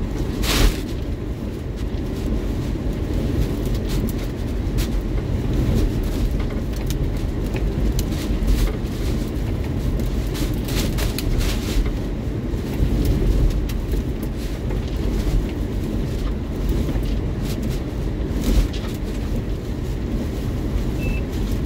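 Hurricane winds buffeting a car and rain lashing its windshield, heard from inside the cabin: a loud, steady low rumble with scattered sharp hits.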